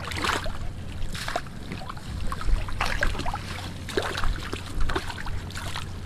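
Splashing and sloshing in shallow tide-pool water as a hand dip net is swept and dipped through it, in irregular splashes about once a second over a low steady rumble.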